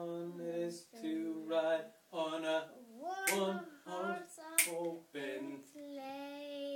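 Singing voice carrying a tune in short phrases of held notes, about a second each, ending on a longer held note near the end.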